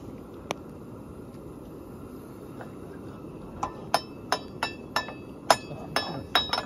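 Light clinks of tableware or cookware: one about half a second in, then about ten quick, uneven clinks from three and a half seconds in, each with a brief ring.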